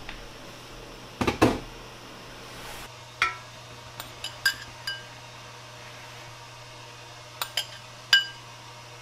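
About a second in, a loud clatter of stainless steel cookware being handled. Then a spoon clinks against a ceramic sauce bowl and the clam shells as sauce is spooned over steamed clams: short ringing clinks in two clusters, the last one the loudest.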